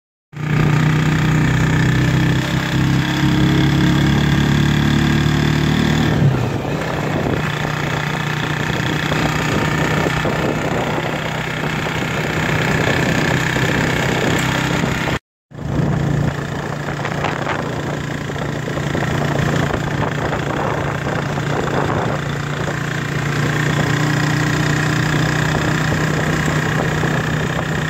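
Motorcycle engine of a Philippine tricycle running steadily while riding, heard from inside the sidecar along with road noise. About fifteen seconds in, the sound cuts out for a moment where two clips are joined.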